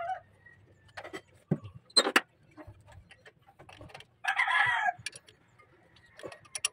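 Metal clinks and ticks of a wrench on the carburetor mounting nuts of a Toyota 7K engine, the sharpest about two seconds in, with a chicken calling once in the background about four seconds in.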